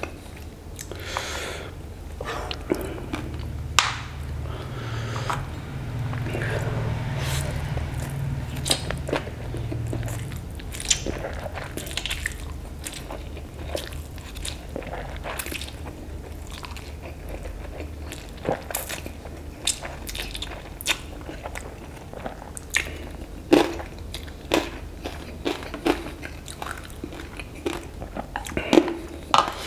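Close-miked eating sounds of a person chewing mouthfuls of spicy instant fried noodles (Mie Sedap Salero Padang), slurping strands in from chopsticks. Wet mouth smacks come as many short, irregular clicks.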